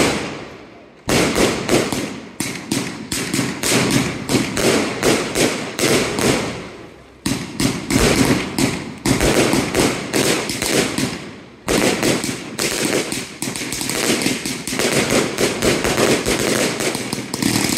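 Consumer fireworks cake firing: rapid strings of sharp shots and bursting reports, several a second. It goes in three runs, each starting suddenly after a short lull about a second, seven seconds and twelve seconds in.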